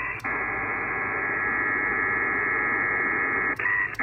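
Pactor 4 data signal heard on an HF receiver: a dense, hissing multitone warble held below about 2.5 kHz. It breaks off briefly at the start and again just before the end for the ARQ turnaround, and a short steady tone sounds in the second break. This is a 600 bps transmission that is struggling on a poor band.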